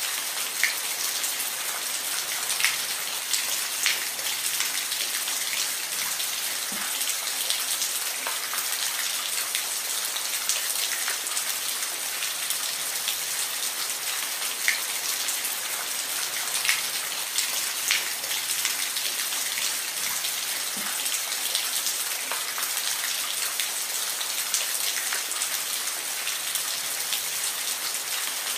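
Steady rain falling, a constant hiss with individual drops hitting a surface every second or so.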